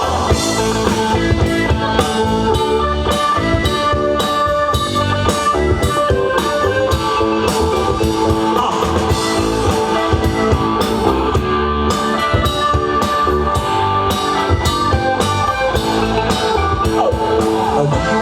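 A rock band playing an instrumental passage: guitar over a drum kit keeping a steady beat, with no singing.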